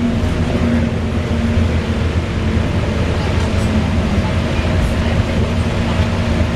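VDL DB300 double-decker bus running under way: a steady low rumble from the engine with a steady whirring whine over it.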